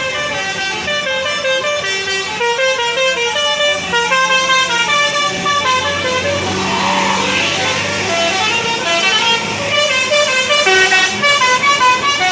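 Bus 'telolet' Basuri multi-tone melody horn playing a quick tune of stepped notes, with the bus engine's low hum underneath.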